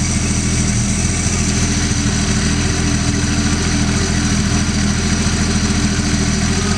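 Holden 161 straight-six engine idling steadily.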